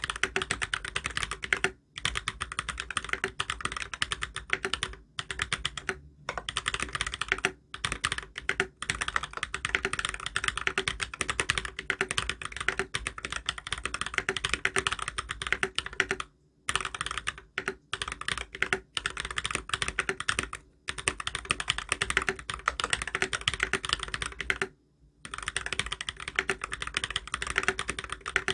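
Mechanical keyboard with lubed Holy Panda tactile switches, a brass plate and ABS keycaps, typed on fast and continuously, a dense run of keystroke clicks broken by a few short pauses.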